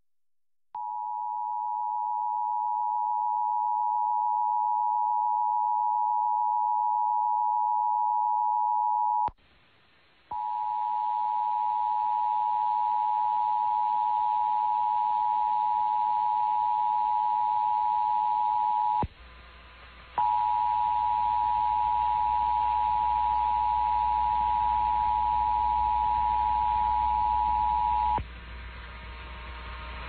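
Emergency Alert System attention signal from a radio station's required monthly test: a steady tone sounds three times, about eight and a half seconds each, with a break of about a second between. From the second tone on there is a broadcast hiss underneath, and it is all that remains after the last tone stops near the end.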